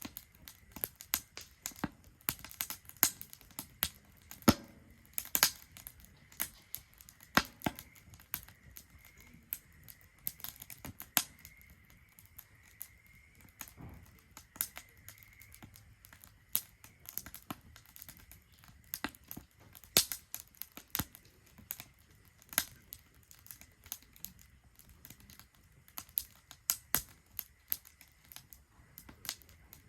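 Wood fire burning in a Solo Stove Ranger fire pit, crackling with irregular sharp pops.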